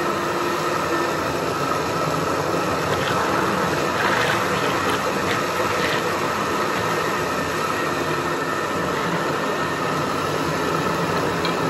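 Electric countertop blender running steadily at an even speed, its jar full of thick flan batter. A few faint clicks come about halfway through.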